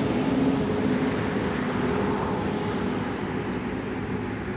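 Airbus A330 airliner's jet engines on final approach: a steady drone with a low hum, slowly fading.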